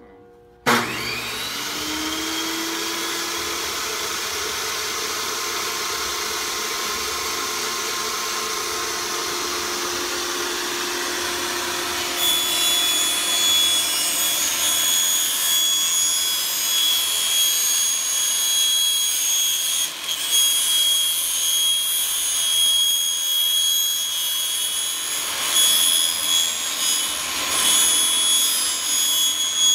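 Benchtop table saw switched on about a second in, its motor spinning up with a rising whine and then running steadily. From about twelve seconds in the blade cuts vinyl J-channel, adding a louder, higher whine that wavers as the strip is fed through.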